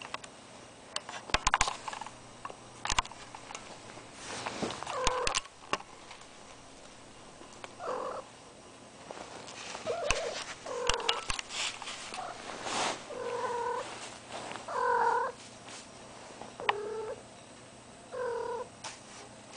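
A cat in heat giving a series of short pitched calls, about seven of them spread over the second half. Sharp knocks and rustling come in the first few seconds, the loudest about a second and a half in.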